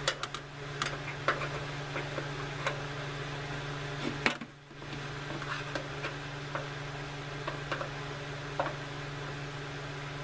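Scattered light clicks and taps of hand tools on metal while a small screw is worked out of a tankless water heater's heat exchanger housing, over a steady low hum.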